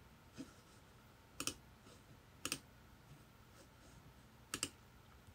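A few faint, sharp clicks spaced a second or two apart, the last one doubled: a finger tapping an iPhone's touchscreen.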